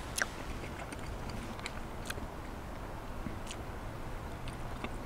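A man chewing a mouthful of stew, with about four short sharp clicks spread through the chewing.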